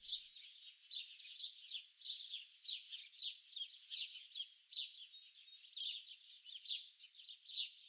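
Songbirds chirping and singing continuously: quick high twittering notes one after another, many of them sweeping downward in pitch.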